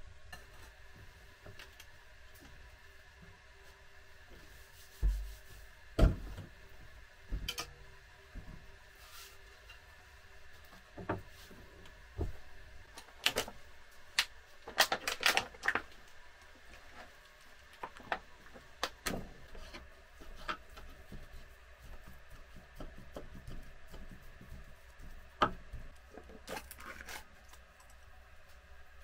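Scattered knocks and clatter of food being handled on a wooden table, with a few heavy thumps early on and a run of crinkling as a knife cuts open a plastic-wrapped pack of raw meat.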